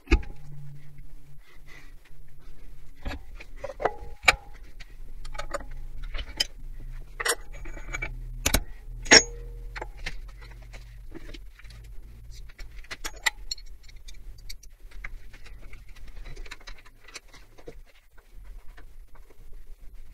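Milling machine running a 12 mm end mill in an R8 collet into a metal block: a steady low motor hum under irregular sharp clicks and pings of the cut and flying chips, two of them much louder about four and nine seconds in.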